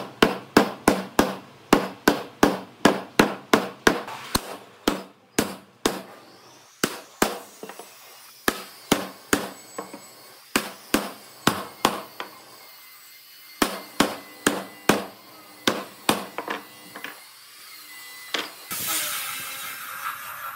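Hammer blows on wood, first in a fast even run of about three a second, then slower and irregular. A steady hiss starts near the end.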